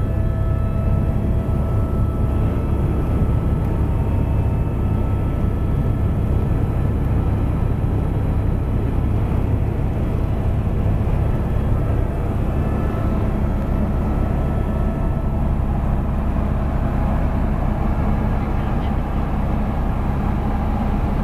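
Helicopter engine and rotor noise heard from inside the cabin in flight: a steady low drone with a few thin, steady whining tones above it.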